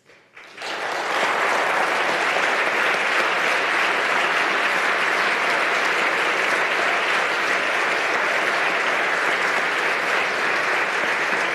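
Sustained applause from a large seated audience of legislators, starting about half a second in and holding steady.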